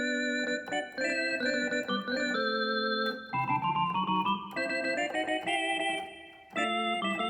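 Korg N264 synthesizer keyboard playing chords that change about every half second, with a short rising run of notes about halfway through and a brief break near the end before the chords come back.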